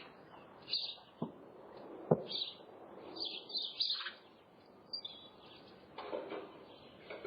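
Small birds chirping in short clusters of high calls, with a few sharp clicks in between, the loudest about two seconds in.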